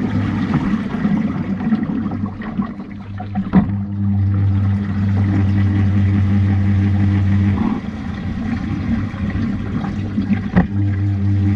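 Washing machine running a wash: a steady motor hum that drops away about seven and a half seconds in and comes back near the end, over sloshing water, with a couple of sharp knocks.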